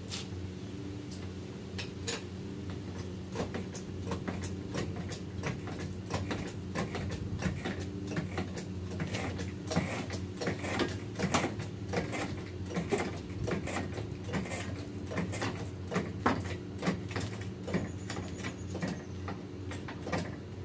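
Irregular metallic clicks and clanks from hand work with a floor jack and tools under a car's front end, busiest through the middle, over a steady low hum.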